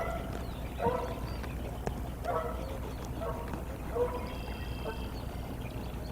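An animal calling: about six short, harsh calls spaced unevenly, with a faint high thin call near the end.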